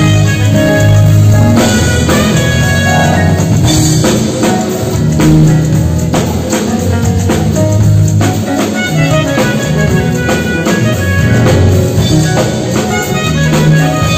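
A band playing music: a drum kit keeping a steady beat under pitched melody lines, with a saxophone among the instruments.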